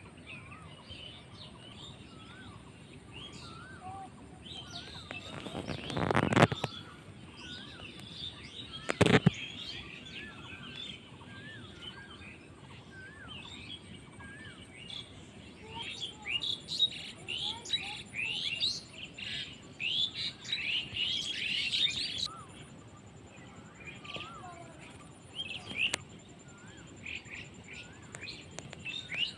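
Several small birds chirping and twittering together, with some short whistled calls, busiest in the second half. Two louder noises cut through: a half-second rushing noise about six seconds in and a sharp knock about nine seconds in.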